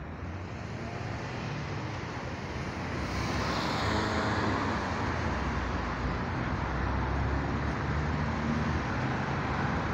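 Road traffic: a vehicle passes, its noise swelling to a peak about four seconds in, over a steady low rumble of traffic.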